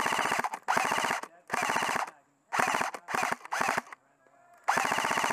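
Airsoft electric rifle firing on full auto in about seven short bursts. Each burst is a fast, even rattle of shots over the whir of the gearbox motor, with a pause of about a second before the last burst.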